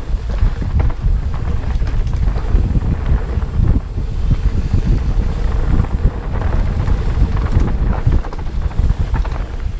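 Wind buffeting the camera microphone while riding a mountain bike down a dirt trail, a heavy continuous rumble with frequent small knocks and rattles from the bike jolting over the rough ground.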